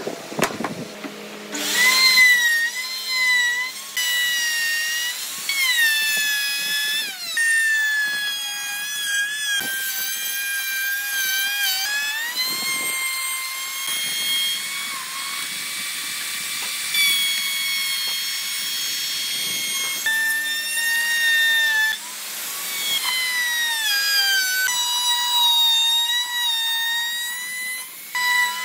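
Handheld electric power tool running on wood, its motor whining at a high pitch that sags and recovers again and again as the load on the cutter changes.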